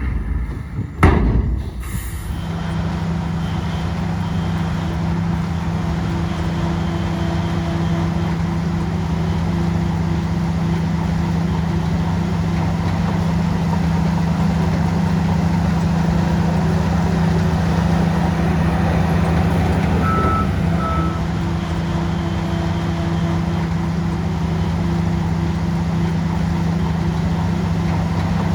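Heavy diesel engine of an earthmoving machine running steadily under load, with a sharp knock about a second in. Two short high beeps sound about two-thirds of the way through.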